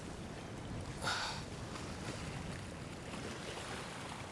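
Sea water washing and foaming around shoreline rocks, a steady rush with a brief louder surge about a second in.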